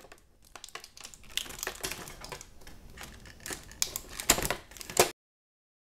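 Scissors snipping through clear plastic blister packaging, the plastic crinkling and clicking irregularly, with the sharpest snips near the end. The sound cuts off abruptly about five seconds in.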